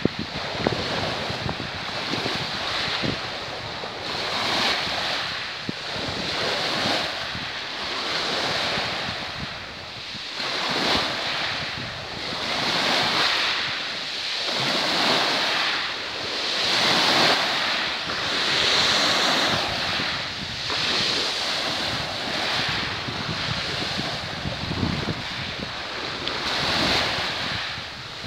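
Choppy sea with small waves splashing, mixed with wind gusting on the microphone. The noise swells and fades every couple of seconds.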